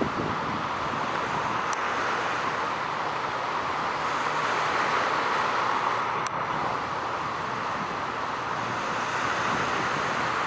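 Steady wash of distant road traffic mixed with wind, an even noise with no distinct events.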